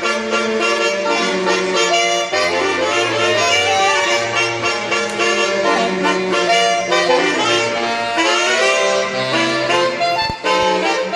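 Saxophone quartet playing a tune in held, shifting chords.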